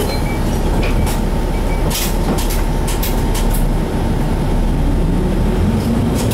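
Inside a Hino Blue Ribbon HT route bus: its 9.9-litre M10U diesel engine running at a standstill, with a few short clicks in the middle, then the engine note rising as the bus pulls away near the end.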